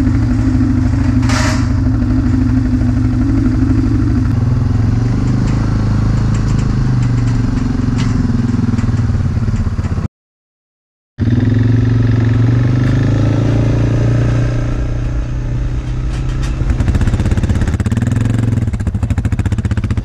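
Quad bike (ATV) engine running steadily at low revs, close by, its pitch shifting a little now and then. The sound cuts out completely for about a second near the middle.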